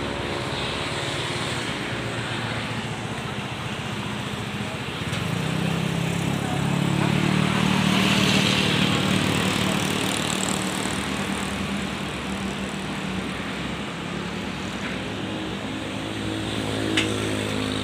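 Truck engine running with road and wind noise, heard from the truck's open rear deck. The engine hum and rushing noise grow louder from about five seconds in, are loudest around eight seconds, then ease back to a steady drone.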